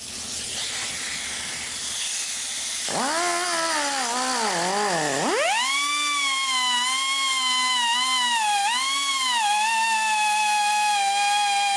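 Pneumatic cut-off wheel: air hissing at first, then about three seconds in a high whine that sags twice as the wheel bites in. It then runs fairly steady with small dips in pitch while cutting into the metal of the rifle's trigger lock.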